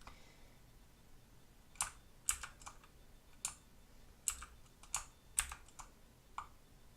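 Keys of a Motospeed CK108 mechanical keyboard with clicky blue switches being pressed one at a time: about a dozen separate clicks at irregular intervals, starting about two seconds in.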